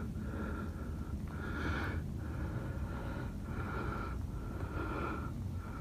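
A person breathing hard through the nose in short, even breaths in and out, each with a thin whistle.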